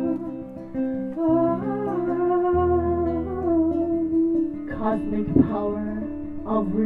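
A woman singing slow, long-held notes to an acoustic guitar accompaniment, with a few strums about five seconds in.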